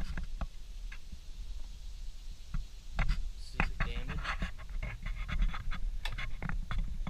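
Footsteps and irregular knocks and scuffs on wooden boards as someone walks across a treehouse deck and steps in through the doorway, with handling noise that is busiest in the second half.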